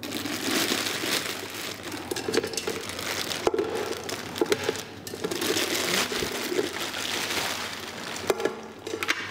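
Packaging crinkling and rustling as it is handled and unwrapped, with many sharp crackles; it starts suddenly and keeps going.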